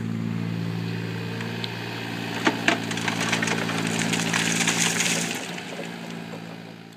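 Takeuchi mini excavator's diesel engine running steadily while its Remu screening bucket sifts soil onto a pile. A couple of sharp knocks come about two and a half seconds in, then a gritty rattling of earth and stones falling through the screen. Everything fades out near the end.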